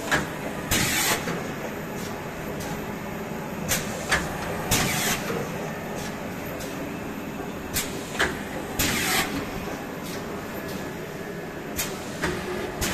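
Automatic dry offset pail printing machine running: a steady mechanical hum, with a repeating cycle about every four seconds of two sharp clicks followed by a short hiss.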